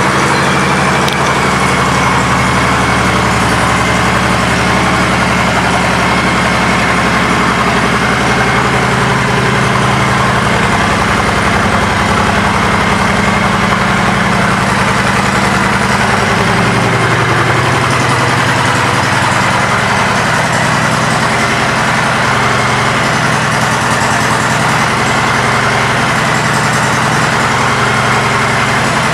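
2020 Honda Fury's 1,312 cc V-twin idling steadily through aftermarket Cobra exhaust pipes.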